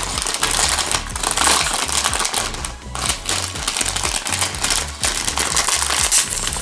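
Foil blind-bag packet crinkling and rustling in the hands as it is squeezed and worked at its crimped seal to tear it open, a quick irregular run of crackles.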